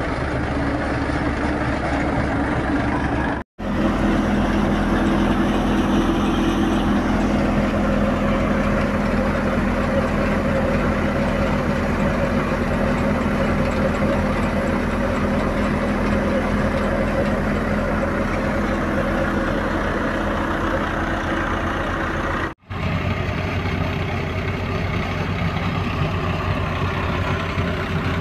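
Wheat thresher running steadily with a low engine drone. The sound drops out for a moment twice, about three seconds in and near the last few seconds.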